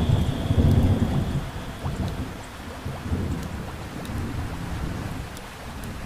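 Heavy rain pouring steadily, with a low rumble of thunder that is loudest in the first two seconds and then dies away.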